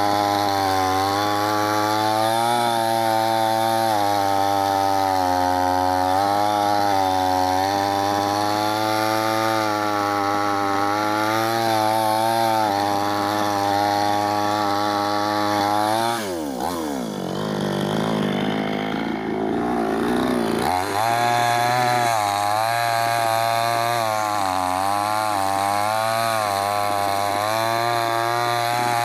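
Chainsaw running while cutting wood, its pitch wavering as the load changes. About sixteen seconds in, its speed drops sharply and stays low for about four seconds before it picks back up.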